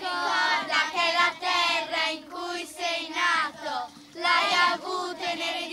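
A group of children singing a chanted line together in short phrases, with a steady held note underneath.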